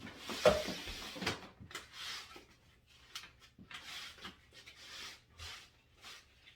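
Potted snake plants being handled and set into place: a couple of knocks in the first second and a half, then irregular short bursts of scraping and rubbing.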